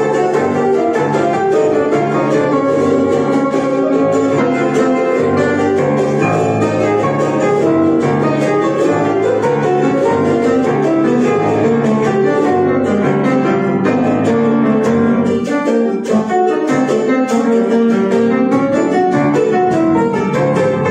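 Grand piano and jarana playing an instrumental jazz arrangement of a son jarocho, with no singing.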